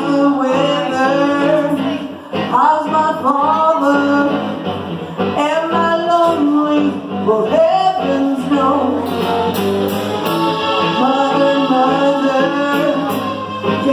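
Live rock band: a woman sings lead over bass guitar, electric guitar, drums and keyboard, with a few cymbal hits in the second half.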